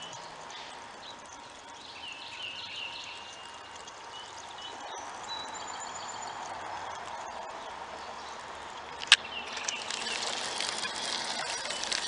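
Birds chirping, then about nine seconds in a sharp click followed by the fast clicking of a spinning reel being cranked.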